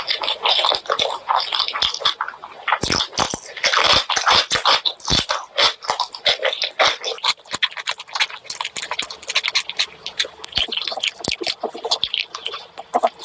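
Close-miked eating of pork curry and rice: wet chewing and lip-smacking made up of many quick, irregular clicks, with no pauses longer than a moment.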